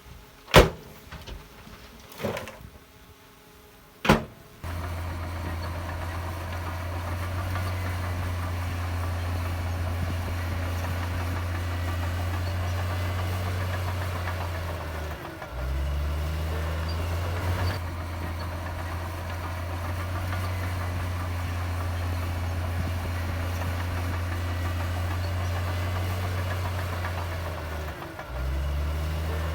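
Three sharp clicks in the first four seconds, then a heavy diesel engine of earthmoving machinery running steadily with a low drone. Twice, around the middle and near the end, the engine note drops briefly and picks back up with a rising pitch.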